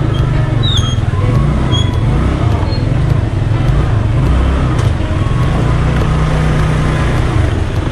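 Yamaha Mio Sporty scooter's small single-cylinder engine running as it rides slowly through street traffic, a steady low drone heard from the rider's seat, with a couple of brief high chirps in the first two seconds.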